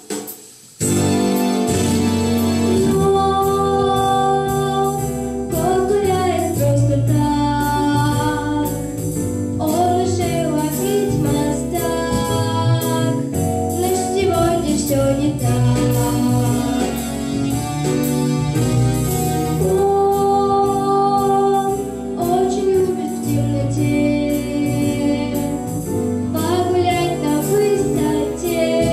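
A young girl singing into a handheld microphone over a recorded pop backing track with a steady beat; the music drops out for a moment at the very start, then runs on.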